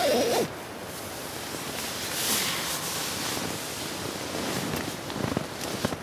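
Steady wind rushing over the mountain ridge above, with a brighter swell about two seconds in. A short falling voice-like sound opens it, and small rustles and clicks of handling come near the end.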